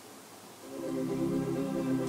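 Background music fading in a little over half a second in, then held notes playing steadily.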